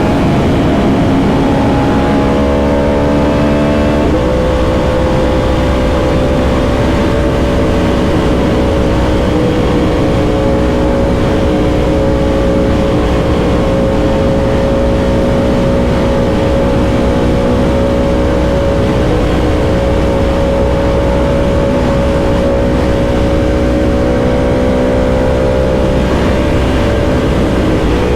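Yamaha R1M's crossplane inline-four engine running steadily under way, over a low rumble. Its pitch steps up abruptly about four seconds in, then holds at a steady cruise.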